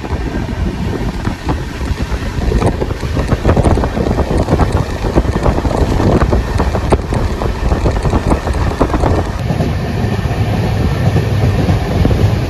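Moving passenger train heard from outside the coach: the LHB coaches' wheels rumble and clatter on the track under a rush of wind on the microphone. It grows louder about three seconds in.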